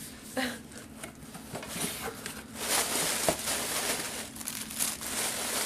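Plastic air-pillow packing and a cardboard shipping box crinkling and rustling as the packing is pulled out of the box, louder from about halfway through, with one sharp click.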